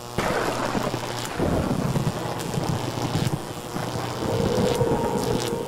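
A rumbling noise effect from an electronic soundtrack that starts suddenly, with steady held synthesizer tones coming in about four seconds in.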